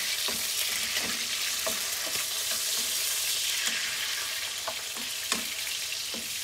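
Chicken pieces sizzling in butter in a non-stick wok as they brown, with a plastic slotted spatula scraping and tapping the pan while they are stirred. A sharper knock about five seconds in.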